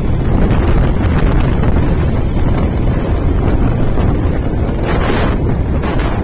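Heavy wind buffeting the microphone of a phone on a moving motorcycle, over the low rumble of the bike and its tyres on the road, with a brief hiss about five seconds in.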